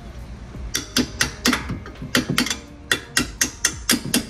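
Hammer tapping a steel bolt through the rear knuckle and upper-arm joint of an Infiniti G37's multi-link suspension. The strikes start just under a second in and come about four a second, each a sharp metallic clink with a short ring.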